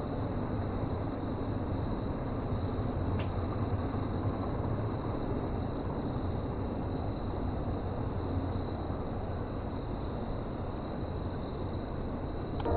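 Steady low rumble and noise of a moving train, with a thin constant high-pitched whine over it and a single faint click about three seconds in.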